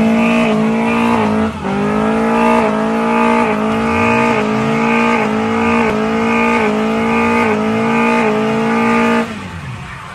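Car engine held at high revs during a burnout or drift, its pitch dipping and recovering about every half second or so, with tyre squeal under it. It cuts off suddenly about nine seconds in.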